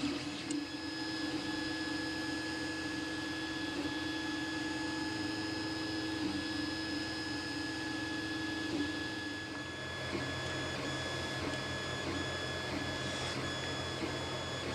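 Creality Ender 3D printer running a print: a steady whine from its stepper motors and cooling fans, with several held tones. The lower hum changes about ten seconds in.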